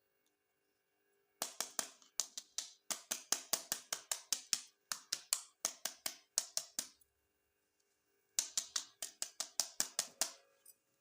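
Quick runs of sharp taps or clicks, about five a second, in two bursts with a short pause between them.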